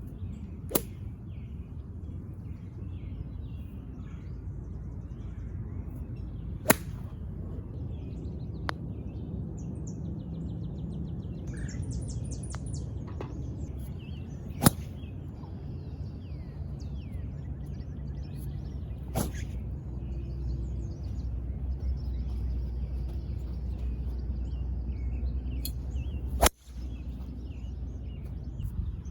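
Golf club striking golf balls: about six sharp cracks several seconds apart, over a steady low rumble.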